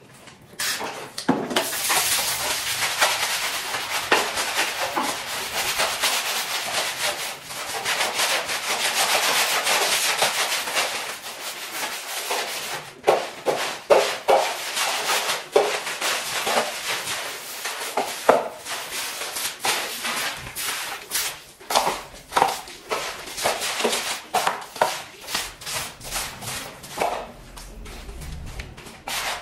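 Stiff broom scrubbing a wet, soapy tiled floor: a steady scratchy scrubbing for about the first ten seconds, then separate back-and-forth strokes roughly one a second.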